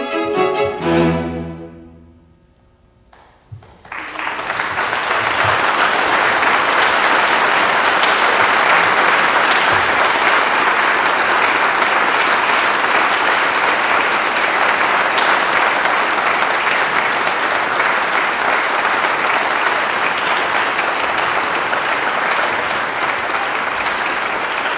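A string quartet's closing chord rings and dies away, and after a brief silence an audience breaks into steady applause that continues.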